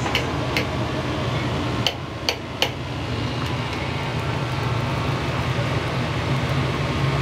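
Steady low roar of a restaurant kitchen's gas burners and extractor hood, with five sharp metal clinks in the first three seconds.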